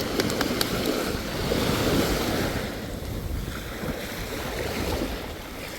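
Wind buffeting the microphone over lapping, splashing water, with a few small sharp splashes about half a second in.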